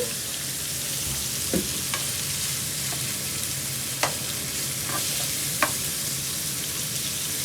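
Food sizzling steadily as it fries in a hot pan, with a few sharp clinks of the cooking utensil against the pan as it is stirred.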